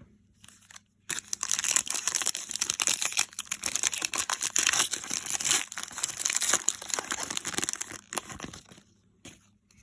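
A foil trading-card pack wrapper crinkling as it is torn open and crumpled: a dense crackle that starts about a second in and dies away after about seven seconds.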